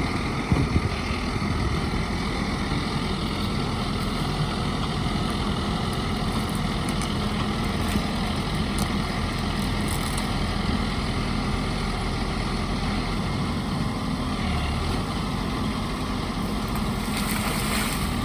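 The engine of a JG100CW compact backhoe loader runs steadily at an even level, with a few short knocks about half a second in and a brief hiss near the end.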